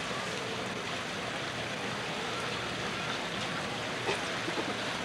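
A steady rushing noise throughout, with faint voices in the distance.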